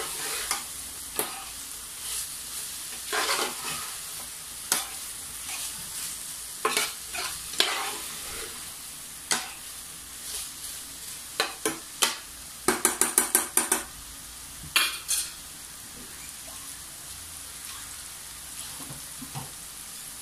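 Pork cubes with garlic and onion sizzling in a nonstick pan, frying in their own rendered fat, as a metal spoon stirs and scrapes them around the pan. A quick run of clicks comes about two-thirds of the way through.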